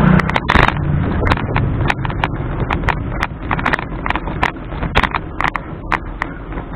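A bicycle rattling along a rough paved alley: a fast, irregular run of clicks and knocks over a steady rumble of road and wind noise. A brief louder burst of noise comes about half a second in.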